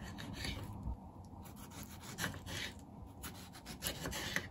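Knife slicing through a tomato on a wooden cutting board: the blade saws and scrapes through the skin and flesh, with a few light taps as it meets the board.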